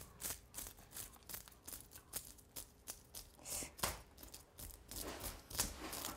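Metal fish scaler scraping the scales off a sea bream on a wooden cutting board: short rasping strokes at about three a second.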